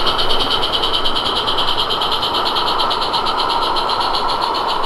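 Live-steam garden-railway narrow-gauge locomotive running, its steam exhaust hissing in a rapid, even beat of about eight to nine a second.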